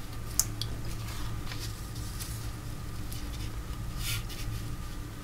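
Paper collage pieces being handled and pressed down by hand: light rustles and taps, with a sharp click about half a second in and a brief rustle near the end, over a steady low hum.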